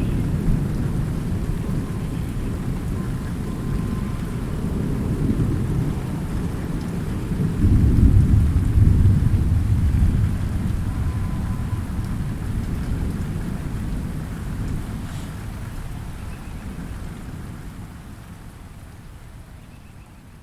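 Steady light rain with thunder rumbling; a loud, deep roll of thunder builds about seven and a half seconds in and dies away over a few seconds, then the rain and rumble fade out gradually near the end.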